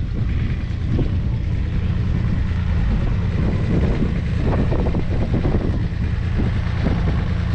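Ford 3000's 2.9-litre three-cylinder diesel engine idling steadily.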